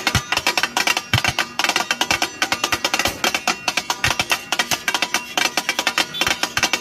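Several flat metal spatulas chopping and mashing dal on a large tawa griddle: a fast, rhythmic metallic clatter of many strikes a second, with heavier knocks about every second.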